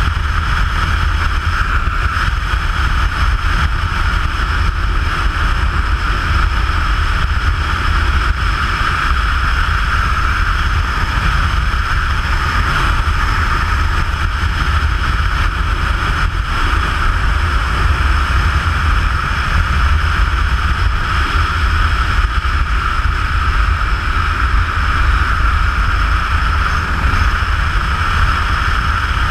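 Steady rumble and rush of wind and road noise from a camera mounted on a vehicle driving along at a constant speed.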